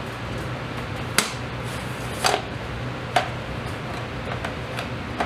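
A plastic 8x10 sheet-film holder being forced into the spring-loaded ground-glass back of a wooden 8x10 view camera: three sharp clicks and knocks about a second apart, then a few fainter ticks. The holder is catching on the back and only locks in after much finagling.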